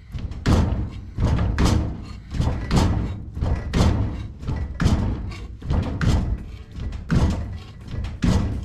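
Metal shrinker working a sheet-steel flange: repeated sharp clunks as the jaws bite and bunch up the steel, about two strokes a second.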